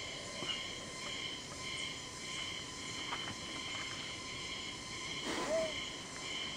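Cicadas singing in a steady chorus of several high tones, one of them pulsing evenly, with a brief louder sound about five seconds in.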